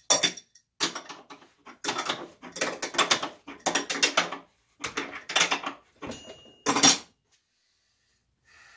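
Hand wrench being worked on a chandelier arm's fitting clamped in a bench vise: about eight short, loud bursts of metallic ratcheting clicks over seven seconds as the arm is loosened.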